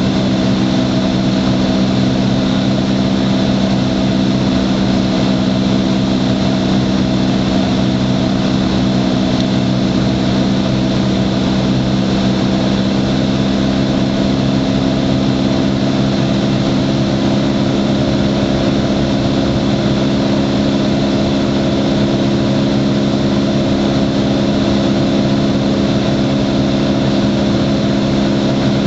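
Cessna 177 Cardinal's four-cylinder piston engine and propeller, heard from inside the cockpit as a loud, steady drone in flight.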